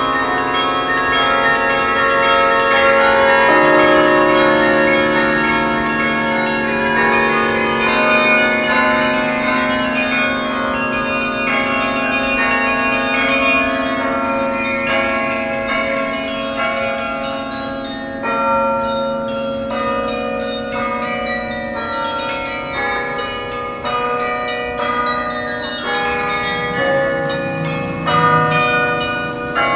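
Yale Memorial Carillon in Harkness Tower playing a tune: many tuned bells struck in succession, several notes sounding together and ringing on into one another.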